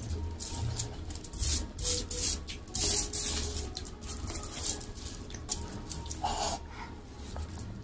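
A bare hand mashing and mixing rice with mashed vegetable bharta and crushed papad on aluminium foil, making irregular wet squishes and crinkles.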